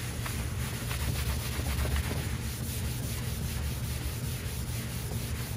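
Lint-free cloth rubbing steadily over a waxed, chalk-painted wooden dresser front, buffing the soft furniture wax to a sheen.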